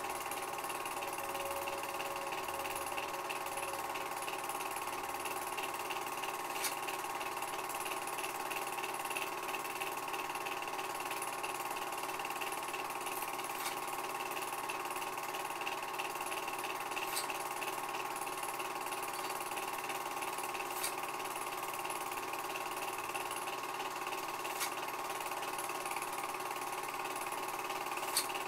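Film projector running: a steady mechanical whir with a few faint clicks.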